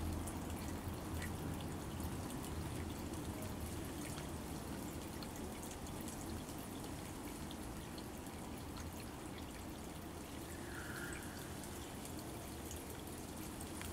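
Steady trickle of running water in a garden pond, over a low hum.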